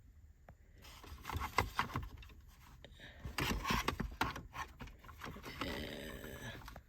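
Hard plastic dashboard trim being worked loose by hand, with irregular scraping, rubbing and clicking. A brief creak comes near the end.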